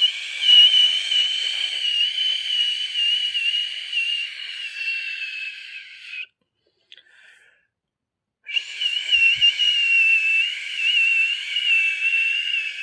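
Vocal mimicry of an airplane in flight: a high, breathy whistle held steady with slight wavers in pitch. It lasts about six seconds, breaks off for about two seconds, then is held again for about five seconds.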